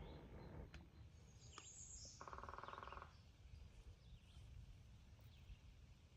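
Quiet outdoor ambience over a low rumble, with one short, rapid rattling trill lasting under a second, about two seconds in.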